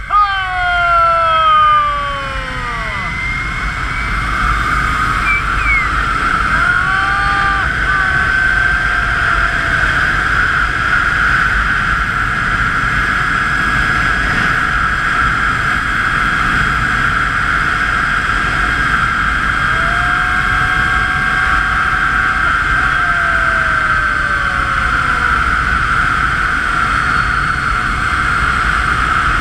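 Zip-line trolley wheels running fast along a steel cable, a steady high whine, over the low rumble of wind on the microphone. A rider's long yell falls in pitch over the first few seconds.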